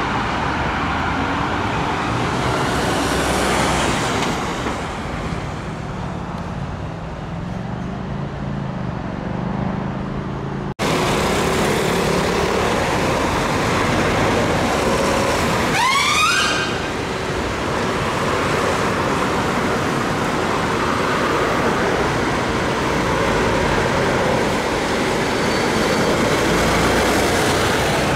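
Road traffic with vehicle engines running; a siren fades out in the first second, and a heavy engine's drone rises in pitch towards ten seconds in. The sound then changes abruptly to busy city-street traffic, with one quick siren whoop sweeping up in pitch about sixteen seconds in.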